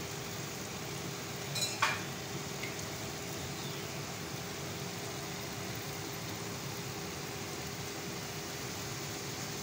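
Chopped onions, tomatoes and garlic sizzling in oil in an aluminium pressure cooker on a gas burner, a steady gentle hiss with a faint hum under it. A couple of light clicks come about two seconds in.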